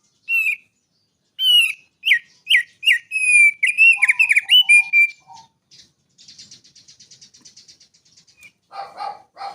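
Male thick-billed heleia (opior paruh tebal) singing a run of loud, clear whistled notes, several sliding downward, then a fast, thin buzzy trill about six seconds in, and a harsher, lower phrase near the end.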